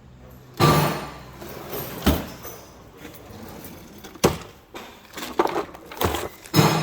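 A series of knocks, clunks and rattling as loose shop parts and boxes are handled and moved about, with one sharp strike about half a second in and several more spread through.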